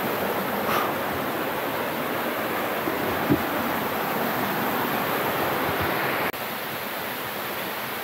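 Steady rushing of a waterfall, falling water filling the sound; a little after six seconds it abruptly drops a few decibels and carries on at that level.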